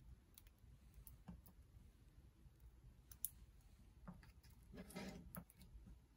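Near silence with a few faint clicks and a soft brief scrape about five seconds in, as crusty baguette toasts are lifted off a ceramic plate and set down on a wooden cutting board.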